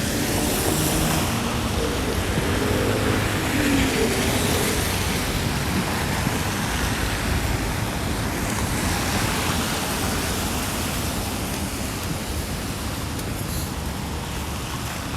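Downtown street traffic passing, a steady wash of tyre noise on a snowy road, with a vehicle engine humming under it in the first few seconds.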